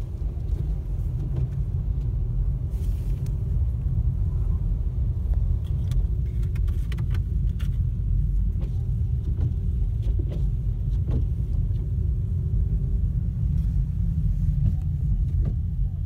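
Car driving on a snow-covered road, heard from inside the cabin: a steady low rumble of engine and tyres on snow and slush, with scattered faint clicks and knocks.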